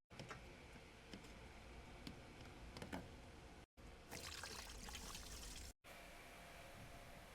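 Faint pouring and trickling of liquid with a few light clicks, broken by two brief dropouts.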